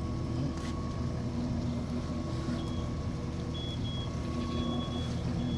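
A small boat's engine idling steadily just after starting, a low even hum.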